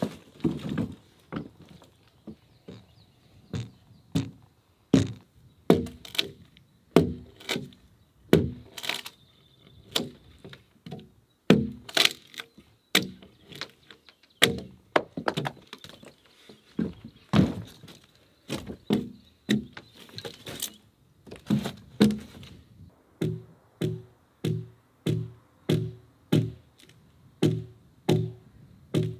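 Axe blows chopping into a log as it is hewn, each a sharp chop. They come irregularly at first, then fall into an even run of about three blows every two seconds near the end, each with a short ringing tone.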